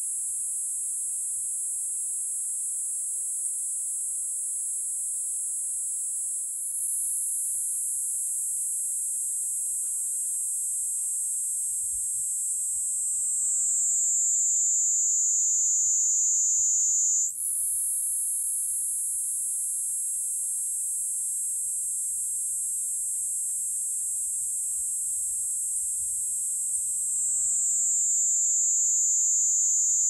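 Platypleura kuroiwae (Kuroiwa's niinii cicada) singing: a loud, continuous, shrill high-pitched buzz. About halfway through and again near the end, it drops lower in pitch and grows louder. After the first drop it breaks off for a moment and starts again high.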